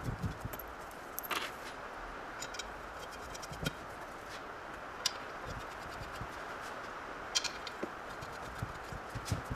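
Scattered light metallic clicks and scrapes as steel studs are handled and threaded by hand into an aluminium engine block, over a steady hiss.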